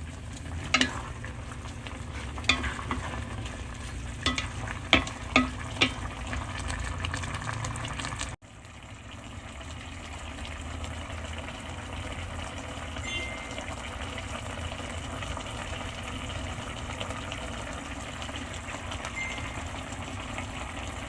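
Chicken adobo sizzling in the pan, with about six sharp clinks of a utensil against the pan in the first eight seconds. A sudden break comes about eight seconds in, then a steady sizzling hiss runs on.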